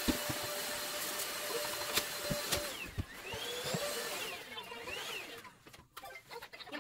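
Stick vacuum cleaner running over carpet, a steady motor hiss whose pitch dips and swells as the nozzle is pushed around. It drops away about five and a half seconds in.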